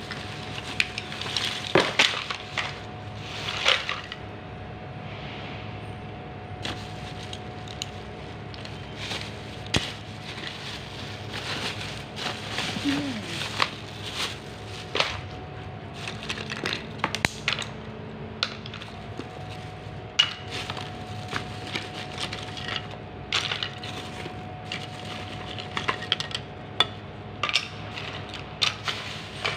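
Plastic bags and wrapping rustling and crinkling as a bag of discarded things is rummaged through by hand, with irregular sharp crackles and small knocks. A faint steady hum runs underneath.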